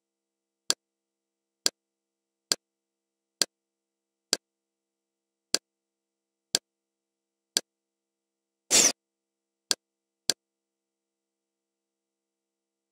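Kodi menu interface sound effects: a short sharp click about once a second as the poster list steps along, eight in a row, then a longer swish just under nine seconds in as a new screen opens, followed by two more clicks.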